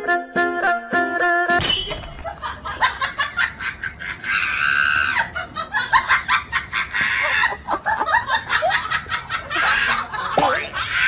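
Light plucked-string music that cuts off suddenly about a second and a half in, followed by a stretch of people laughing in short bursts.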